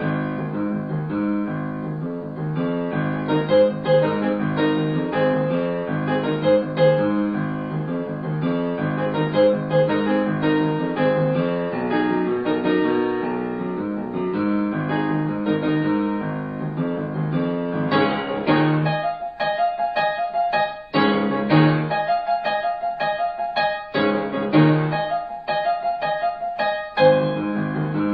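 Background piano music. It plays continuous flowing notes, then from about two-thirds of the way in turns to sparser repeated notes with short pauses between phrases.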